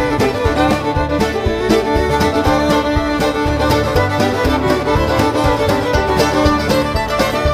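Bluegrass music with a fiddle carrying the melody over a steady string-band beat.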